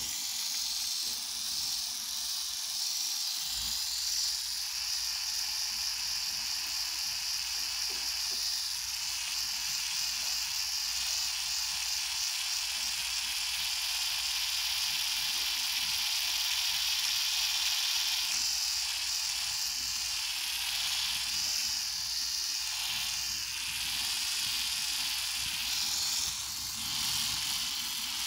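A Kemei 5-in-1 electric epilator running steadily with a high, hissing whir while its head is drawn over the skin.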